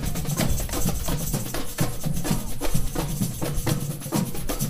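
A samba bateria, a street drumming band, playing a steady groove: deep bass drums under a dense, even stream of sharp drum and wood-like strikes.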